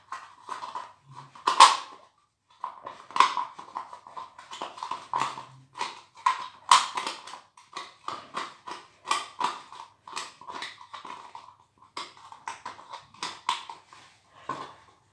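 White cement and water being stirred into a paste in the cut-off bottom of a plastic water bottle: a quick, irregular run of scrapes and clicks against the plastic, with short pauses about two and twelve seconds in.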